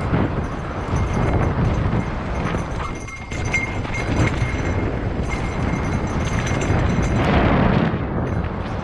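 Mountain bike riding fast over a dry dirt trail strewn with loose rock: a steady rumble of tyres on dirt, with the bike rattling and knocking over the rocks, and heavy wind buffeting on the bike-mounted camera's microphone.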